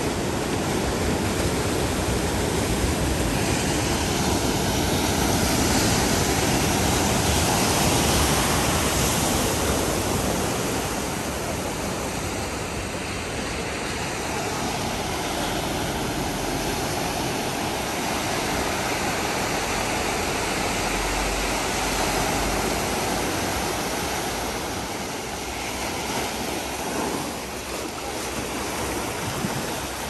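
Machine-made wave in a surf lagoon breaking and rushing, with whitewater washing up the lagoon's beach slope: a steady roar of rushing water. It is loudest for the first ten seconds or so, then eases a little.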